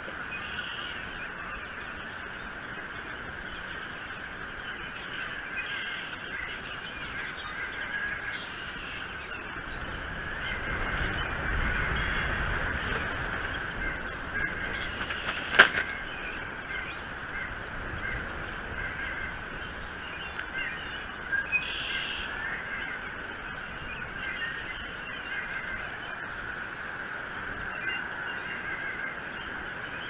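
Steady wind and rain on the nest microphone, with a few short bird calls spaced through it. A louder low rumble swells for about four seconds midway, and a single sharp click comes a little after.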